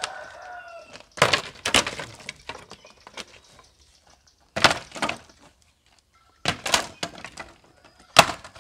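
Pieces of firewood being dropped and tossed onto a pile, clattering and cracking against each other in four bursts of knocks with pauses between.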